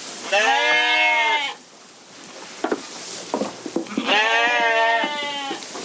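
Corriedale sheep bleating: two long wavering calls, about three seconds apart, with a few short clicks between them.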